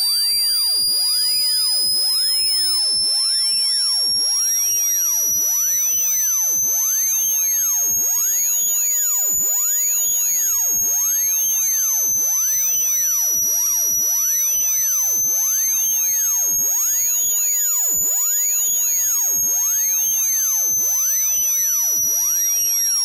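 Electronic speaker-cleaner (water-eject) tone: a continuous piercing high-pitched whine that slowly wavers up and down in pitch, with fainter higher overtones. It is meant to vibrate a phone speaker's diaphragm and shake out trapped water.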